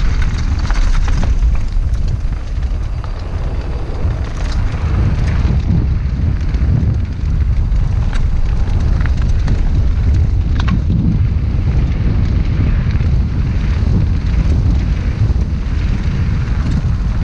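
Wind buffeting a helmet-mounted camera's microphone during a fast mountain-bike descent, a loud, steady low rumble. Tyres roll over dirt and gravel, with scattered clicks and rattles from the bike.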